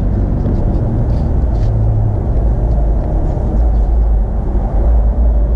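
Steady low rumble, with faint light clicks of metal Torx bits being handled in a plastic bit rail.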